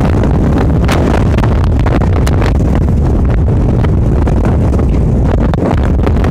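Wind blowing hard across the microphone: a loud, steady rumble with short crackling gusts.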